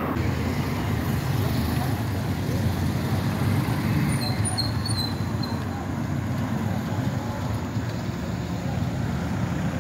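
Steady street traffic noise heard from a moving bicycle, with a car passing close at the start. A few short high chirps come about four seconds in.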